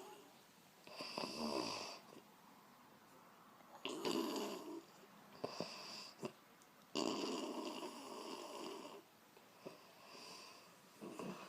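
A woman snoring in her sleep: a run of about six snores a second or two apart, the longest lasting about two seconds.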